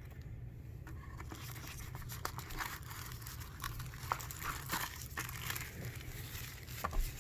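Packaging being handled while a USB hub is unpacked from its box: crinkling and rustling with scattered small clicks and taps.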